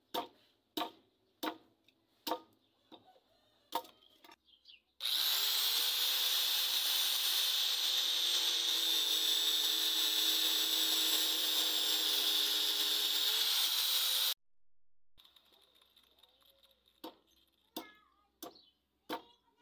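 A blade chopping into a wooden handle block, a sharp knock about every 0.7 s. About five seconds in, an angle grinder with a cutting disc spins up with a rising whine and cuts into the wood for about nine seconds, then cuts off suddenly. A few more chops of the blade follow near the end.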